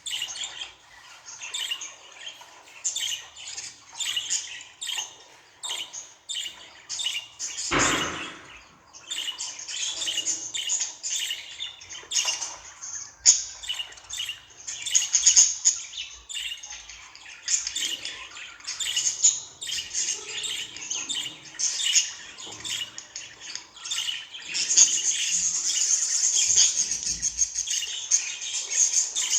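Budgerigar chirping and warbling in quick, continuous chatter, with a short louder noise about eight seconds in and a denser, louder stretch of warbling near the end.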